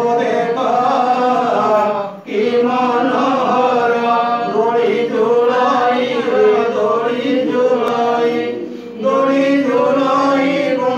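Hindu devotional chanting (kirtan) sung into a microphone, long held melodic phrases with short breaks about two seconds in and again near nine seconds.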